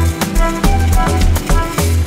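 Background music with a steady drum beat and a repeating bass line.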